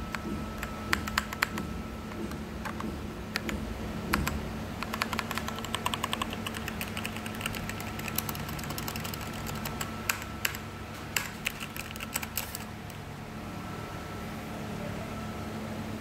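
Keys of an Azio MK Mac mechanical keyboard being typed: irregular sharp key clicks with a fast flurry in the middle, stopping about three-quarters of the way through. A faint steady hum runs underneath.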